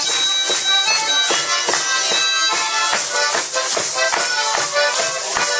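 Harmonica playing a reedy melody over a steady percussion beat.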